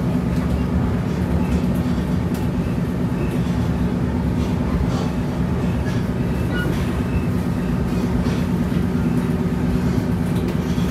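Steady rumble of a moving passenger train heard from inside the carriage, with a few faint knocks.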